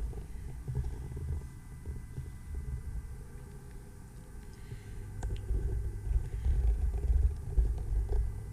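Low, uneven rumbling with soft thumps from a handheld camera being carried as someone moves about, and a single sharp click about five seconds in.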